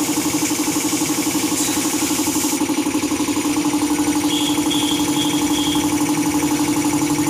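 Piston air compressor running steadily for the spray painting, a loud hum that pulses rapidly. A high hiss of air is there at first and cuts off about two and a half seconds in, and four short high chirps come near the middle.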